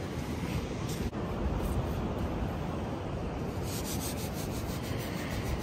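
Rubbing, scraping noise over a steady low rumble of wind on the microphone. From about two-thirds of the way in, a rapid run of light scratchy ticks.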